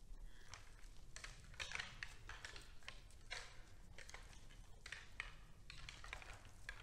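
Faint, irregular crunching and rustling from red deer feeding and moving in snow, a few short crunches a second.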